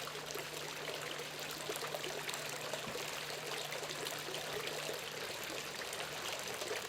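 Garden fountain water running and splashing steadily.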